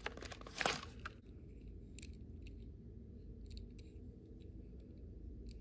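Plastic blister packaging of a Hot Wheels car crinkling as it is peeled off in the first second, then a few faint small clicks of the die-cast toy being handled, over a steady low hum.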